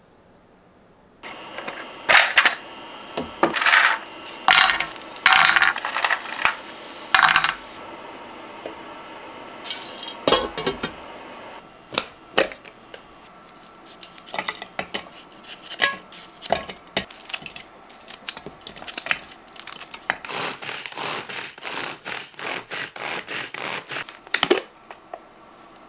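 Pull-cord manual food chopper being worked on vegetables: a long run of quick cord pulls, each a short rattling whir of the blades, coming faster and more evenly, about three pulls a second, near the end. Louder ringing bursts fill the first several seconds.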